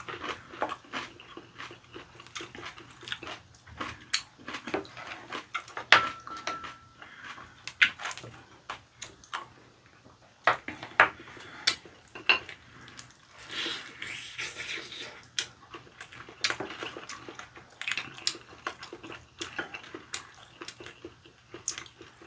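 Wooden chopsticks clicking against ceramic rice bowls and plates in many short, irregular taps, with chewing of sauced fried chicken and rice.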